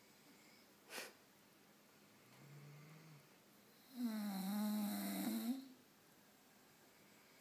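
Bulldog snoring: a soft, low snore about two and a half seconds in, then a much louder snore lasting about a second and a half. A short click comes about a second in.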